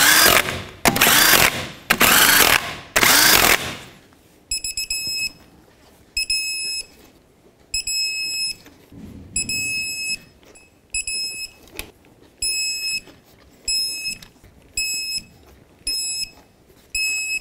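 A 20-volt cordless impact wrench hammering lug nuts on in three bursts over the first few seconds. Then a string of short electronic beeps, about one a second: a digital torque wrench signalling that each lug nut has reached its set torque.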